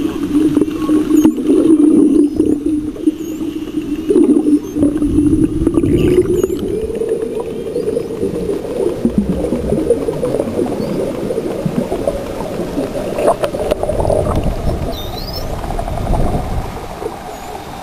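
Underwater sound of spotted dolphins: faint high whistles that sweep up and loop, several times, with a few sharp clicks. All of it lies under a louder low droning hum that slowly rises in pitch.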